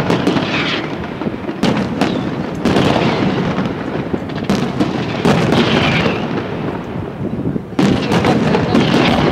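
Chiarappa Fireworks display: aerial shells bursting in quick succession, sharp bangs over continuous crackling, with a fresh cluster of loud bangs near the end.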